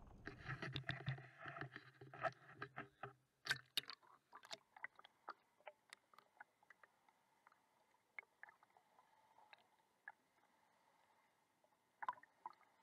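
Water splashing and rushing over a camera as it is plunged into the river. The sound then turns muffled and almost quiet underwater, with scattered sharp clicks and knocks that thin out, and a short cluster of clicks near the end.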